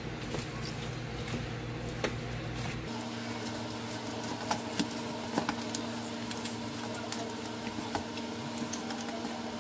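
Raw chicken wings being worked by hand in a bowl of seasoning: soft handling sounds with scattered light knocks and ticks, over a steady electrical hum that changes tone about three seconds in.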